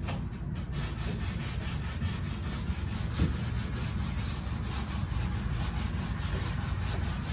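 Sanding the boat's wooden deck with 180-grit sandpaper: a steady rasping over an even low rumble, with one brief knock about three seconds in.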